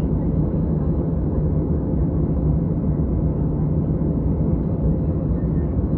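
Steady low cabin rumble inside a Boeing 737-700 taxiing on the ground, its CFM56-7B turbofan engines running at low power.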